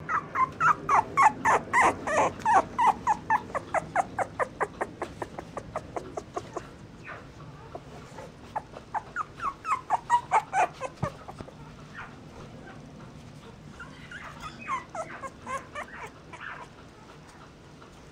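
Mixed-breed puppies crying in rapid runs of short high whimpers, about four a second. A long run at the start tails off, and two shorter bouts follow, the last one fainter.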